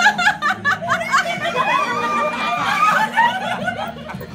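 Several people laughing and exclaiming excitedly, high voices overlapping, with quick bursts of laughter in the first second and drawn-out squeals after.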